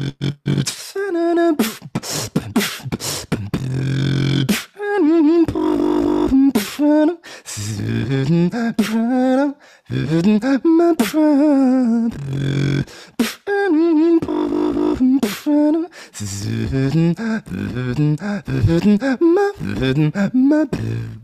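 Solo beatboxing: sharp drum-like kicks and snares, a low bass line and a wavering wordless melody sung over them, with brief breaks between phrases.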